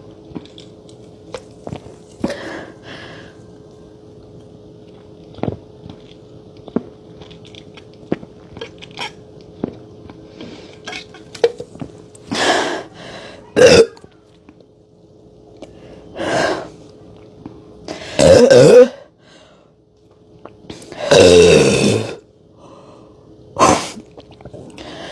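A person gulping down carbonated Sprite, with small swallowing clicks, then from about halfway a run of about six loud burps, coughs and throat-clearings as the fizz comes back up.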